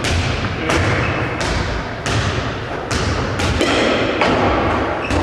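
Irregular sharp thuds and knocks of baseball training in a sports hall: balls and bat striking, about eight knocks in five seconds, each echoing in the large hall.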